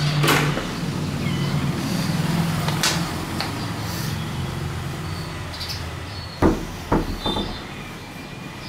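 A door and handheld camera being moved, giving clicks and knocks over a steady low hum, with two sharp thumps about two-thirds of the way through.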